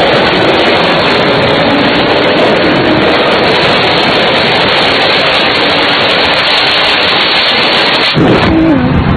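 Street-racing cars at full throttle heard from a moving car alongside: a loud, steady rush of engine, wind and road noise, with one engine's pitch rising and falling about eight seconds in.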